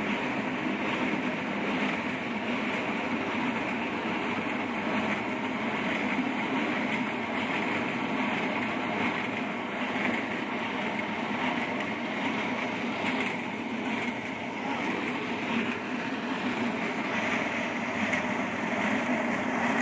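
Micro-trenching saw cutting a narrow slot in a concrete road, its water-cooled blade grinding steadily through the concrete together with the machine's engine.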